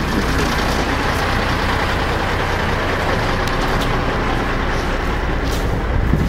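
Diesel semi truck running steadily as it pulls its trailers over dirt: an unbroken low rumble with a rush of noise, heard from the open cab window.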